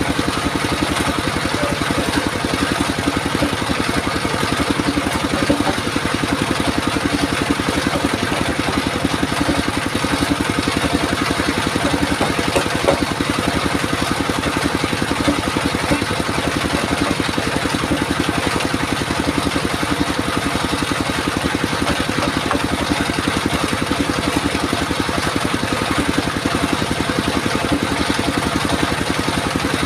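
Engine of a circular sawmill rig running steadily at an even speed, with no sudden changes.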